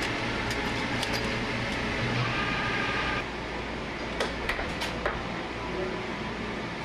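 Small metal tools clinking in a tool-cabinet drawer, then, about four seconds in, a few sharp metal clicks and taps as parts are set on a milling machine table, over a steady machine-shop hum.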